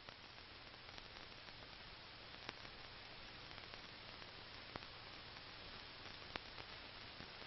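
Near silence: the steady faint hiss and low hum of an old film soundtrack, with a few faint clicks.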